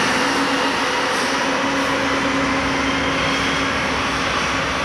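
Grain train of hopper cars rolling past: a steady noise of steel wheels on the rails, with a few faint steady tones running through it.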